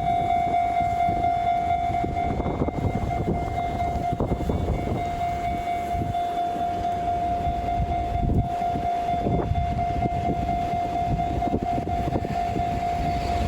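Japanese level crossing warning alarm ringing at one steady pitch over the rumble of a passing train.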